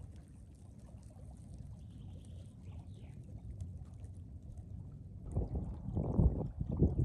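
Wind buffeting the microphone: a steady low rumble that swells into louder, uneven gusts about five seconds in.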